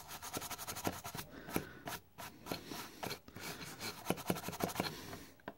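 Toothbrush bristles scrubbing a circuit board around a transistor, wet with paint thinner to clean off solder residue: quick back-and-forth scratchy strokes, pausing briefly a couple of times.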